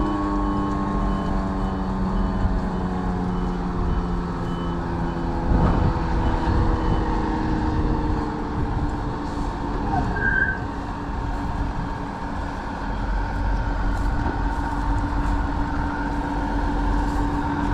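John Deere 8400i self-propelled forage harvester running steadily under power, with several steady mechanical tones. A reversing alarm beeps about twice a second for the first seven seconds.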